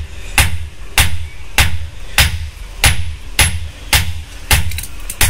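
Blacksmith's hammer striking metal on an anvil while forging a betel nut cutter blade: sharp ringing blows at a steady pace of about one every 0.6 seconds. A low steady hum runs underneath.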